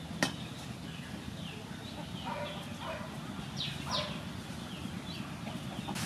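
Birds calling: a run of short chirps, with a few louder downward calls in the middle. A sharp click comes about a quarter of a second in.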